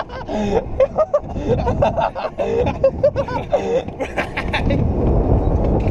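People laughing and giggling in short bursts over the running of a side-by-side utility vehicle. The laughter dies away about four seconds in, leaving the vehicle's engine and road noise, which grows louder.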